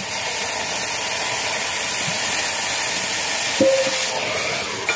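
Oxy-fuel cutting torch hissing steadily as it cuts through a steel rail fastening, throwing sparks. A short clear tone sounds briefly about three and a half seconds in.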